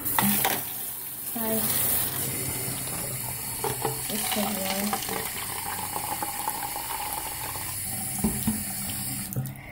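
Water running from a bathroom sink tap into a small plastic toy baby bottle, a steady rush that stops abruptly near the end.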